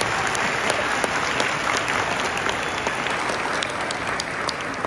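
A large audience applauding at the close of a lecture. The clapping is dense and steady and begins to thin out near the end.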